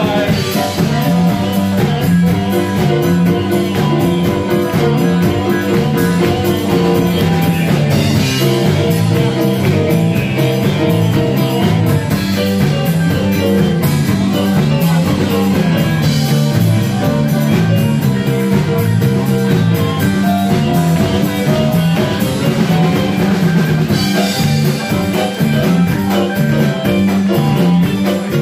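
Blues band playing an instrumental section: drum kit and guitar over a repeating low riff, with cymbal crashes every few seconds.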